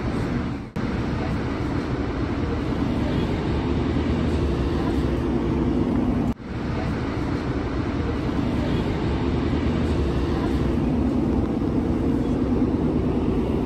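Running noise heard inside a moving passenger train: a steady rumble of wheels on rail with a low hum, cutting out briefly twice, about a second in and about halfway through.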